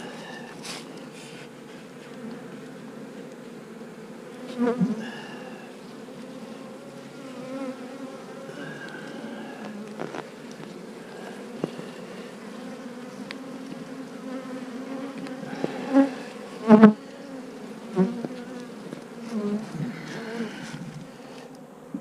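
Honeybees buzzing steadily around an opened hive, the hum swelling briefly louder several times.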